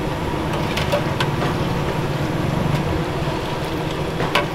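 Small samosas deep-frying in bubbling oil in a large iron wok, a steady sizzle with faint crackles, over a steady low rumble.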